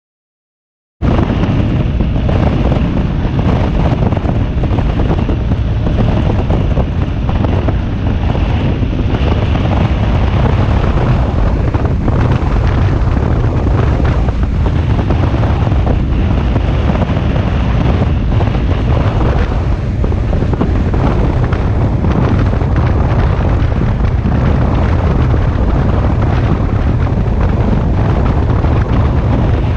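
Wind buffeting the microphone of a camera mounted on a BMW R1250GS Adventure motorcycle under way, with the bike's boxer-twin engine and road noise beneath it. It cuts in abruptly about a second in and then stays steady.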